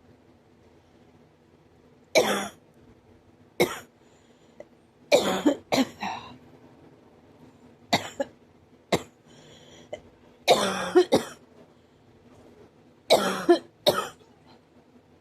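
A person coughing hard in sudden bursts, some single and some in quick runs of two or three, every second or two with short pauses between. It is a cough that hurts the ribs and chest.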